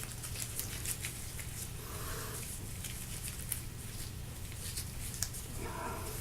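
Faint scattered clicks and light rustling over a steady low hum.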